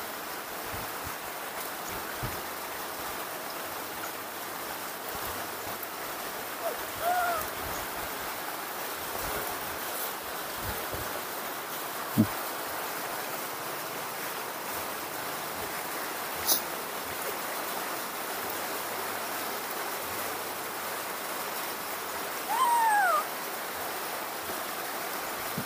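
Steady rain hissing, with a few brief high calls about seven seconds in and again near the end, and a couple of sharp clicks.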